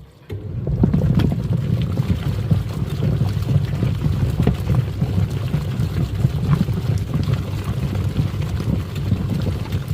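Twin-tub washing machine's wash tub starting up about half a second in, its pulsator churning and sloshing foamy water with a steady low rumble and splashing.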